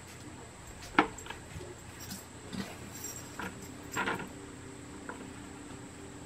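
Handling noise as a cloth is fitted and pulled down over a plastic bucket: scattered light clicks and rustles, with one sharp click about a second in and a few more around four seconds.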